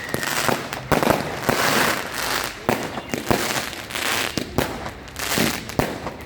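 Fireworks going off: many sharp bangs at irregular intervals over a continuous crackle.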